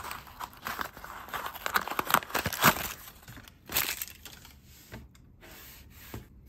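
A small cardboard blind box being torn open by hand, with crinkling and crackling, loudest about two and a half seconds in. It then turns quieter, with a few light clicks as the small figures are handled.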